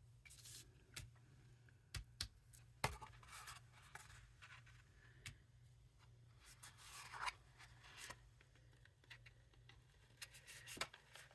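Faint rustling and creasing of thick paper being folded by hand, with a handful of sharp taps and clicks spread through.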